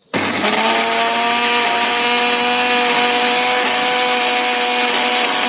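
Electric mixer grinder (mixie) starting up just after the beginning with a short rising whine, then running steadily at speed, grinding chutney ingredients into a paste with no water added.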